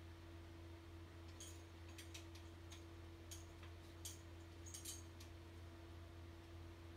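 Faint light clicks and taps, a dozen or so scattered over a few seconds, as a cat scrambles in circles on a wooden folding clothes-drying rack, over a low steady room hum.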